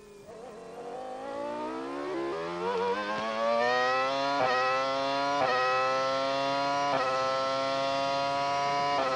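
Formula One McLaren's Mercedes V10 engine heard onboard, accelerating hard out of a slow corner. The note climbs steeply and grows louder, then runs through quick upshifts about one to two seconds apart, each a brief break in the high, steady scream.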